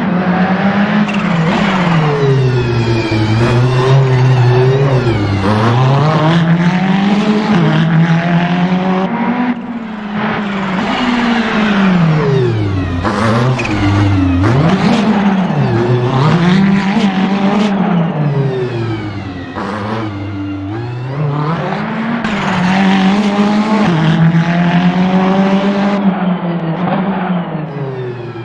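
Ferrari 488 GT3's twin-turbo V8 driven hard. The revs climb repeatedly as it accelerates and drop sharply each time it brakes and changes down, over and over.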